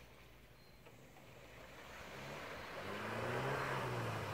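Suzuki 4x4's engine revving as it drives into a muddy pond, with water splashing around the wheels. It is faint at first and grows steadily louder from about halfway through, the engine pitch rising and falling.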